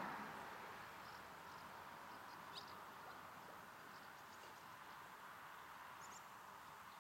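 Near silence: faint outdoor ambience with a few brief, faint high chirps, after a rushing noise fades out in the first second.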